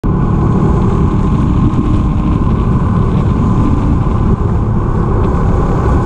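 BMW R1250R's boxer-twin engine and stock exhaust running at a steady road speed, heavily mixed with wind rushing over the camera's microphone.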